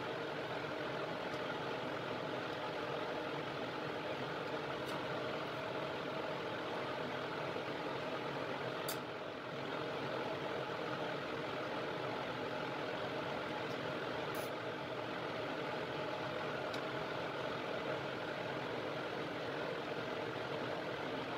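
A blower fan running with a steady hum, with a few faint light clicks.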